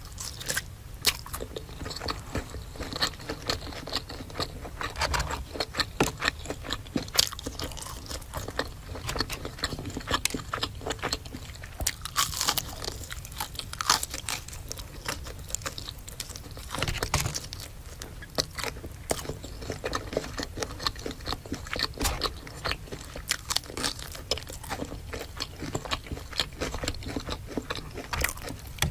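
Close-miked eating: crunchy bites and chewing, a dense run of sharp crackles and clicks.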